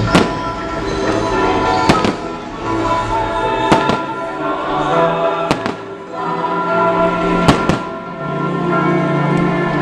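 Fireworks going off in a series of sharp bangs, roughly one every two seconds, with music playing steadily underneath.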